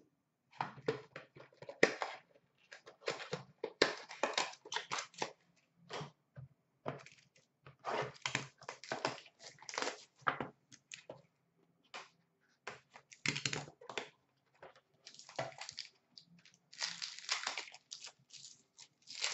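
Foil trading-card pack wrappers being torn open and crumpled by hand, with cards handled in between: irregular bursts of crinkling and rustling.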